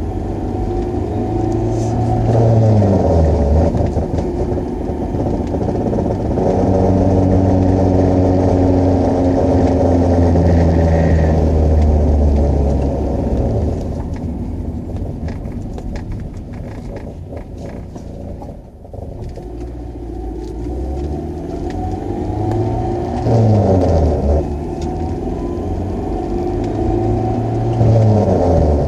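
1999 G20 van running under way with a low vibrating drone, the noise its owner is trying to track down. The engine pitch drops sharply three times, as at gear shifts, and holds steady in between; it briefly quietens in the middle.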